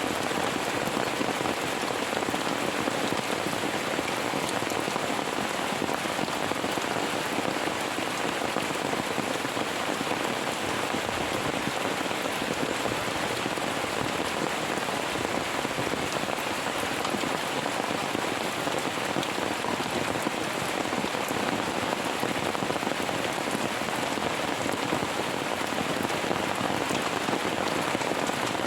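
Steady heavy rain falling on a surface, a dense even patter of drops with no thunder clap.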